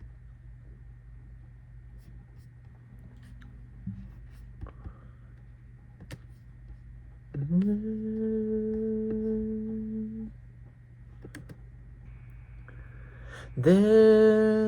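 A man hums two long held notes, each sliding up into the same pitch and holding steady, the second louder and starting near the end. A low steady electrical hum and a few faint clicks lie underneath.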